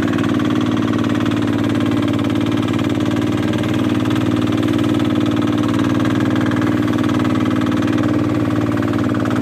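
Small fishing boat's engine running steadily under way, an even, unbroken drone.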